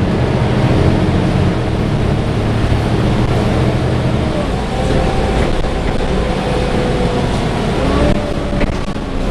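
Volvo B7TL double-decker bus's cooling fan whirring with a hoover-like sound over a steady low drone; its tone shifts in pitch about halfway through.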